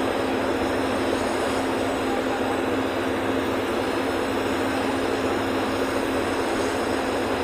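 Steady engine and road noise inside a bus cruising at highway speed, with a constant low drone.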